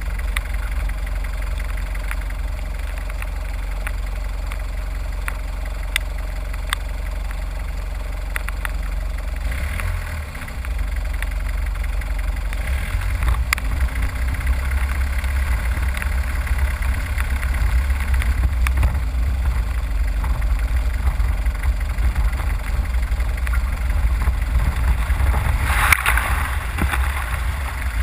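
A vehicle engine running at low speed under a steady low rumble, which turns rougher and louder about ten seconds in. A brief rush of noise comes near the end.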